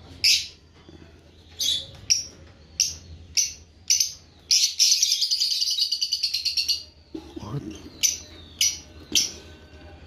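Lovebirds chirping: a string of short, high chirps, and a longer rapid chattering call about halfway through.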